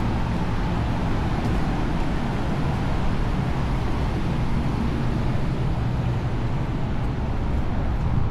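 Steady outdoor street ambience: an even background rumble, heaviest in the low range, like distant traffic.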